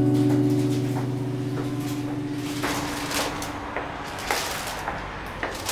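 An acoustic guitar chord rings out and fades away over the first couple of seconds. It is followed by faint rustling with small scattered clicks and knocks.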